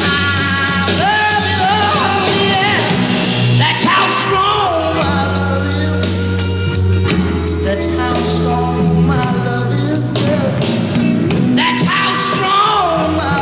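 1960s rock band recording with singing over a steady bass line and band accompaniment.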